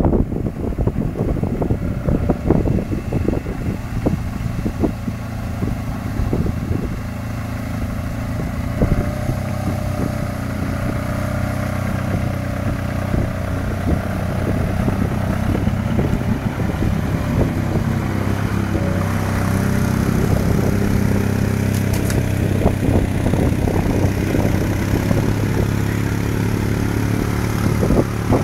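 A vehicle engine running steadily under load while fording deep floodwater, growing louder and stronger after about eight seconds, with water splashing and sloshing around it.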